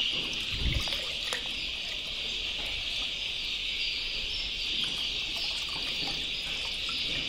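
A steady, high-pitched insect chorus of crickets, with a thin stream of milk trickling from a cut plastic packet into a bucket of water: the milk is being mixed into the chicks' drinking water before the vaccine goes in.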